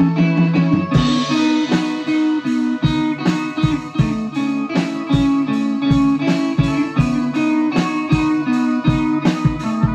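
Small band of electric guitar, trumpet and drum kit playing an improvised ambient jam. Drum strikes land about twice a second, with a cymbal crash about a second in.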